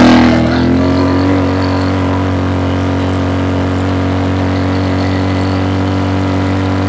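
Engine of a ridden beach bike running. Its pitch and loudness ease off about half a second in, then hold steady.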